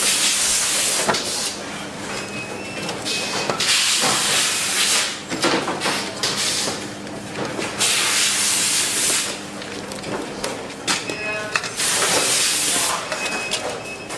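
Factory production-line machinery: repeated hissing bursts about a second long, five or so over the span, over a steady machine hum, with a few short beeps between them.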